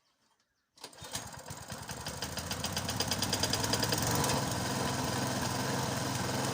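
Tecumseh single-cylinder lawn mower engine starting from cold: it catches about a second in and picks up speed over the next few seconds, then runs steadily.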